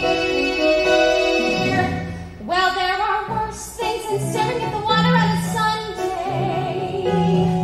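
A woman singing a musical-theatre song, holding notes with vibrato, over instrumental accompaniment with sustained low notes.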